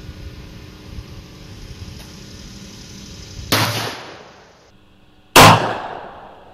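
Two shots from a .44 Pietta 1860 Army black-powder percussion revolver (8-inch barrel), about two seconds apart. Each has a short ringing tail, and the second is much louder.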